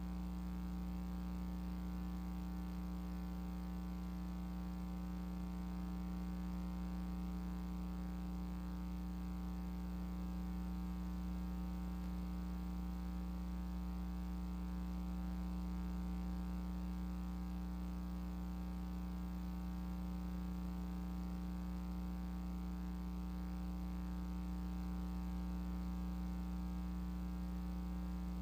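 Steady electrical mains hum with a stack of overtones, unchanging throughout: line buzz on an audio feed that carries no program sound behind a station standby card.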